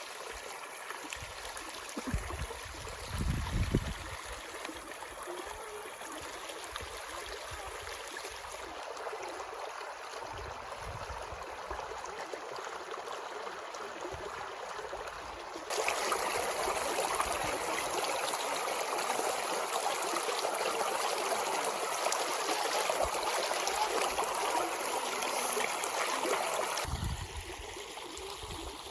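Stream of water running and trickling steadily over rocks, getting louder about sixteen seconds in and dropping back near the end. A few low rumbles early on.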